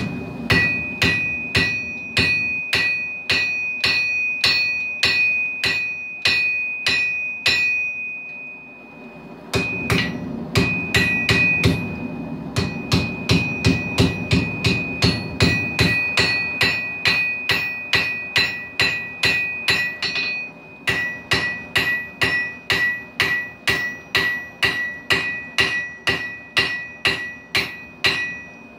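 Hand hammer forging hot steel on an anvil: steady blows about two a second, each with a bright ringing from the anvil. The hammering stops for about a second and a half a third of the way in, then carries on.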